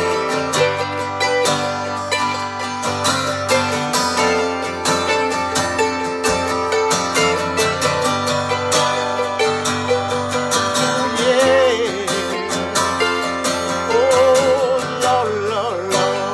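Acoustic guitar strumming and a mandolin picking together in a country-style song intro. In the second half a wavering sung line comes in over them.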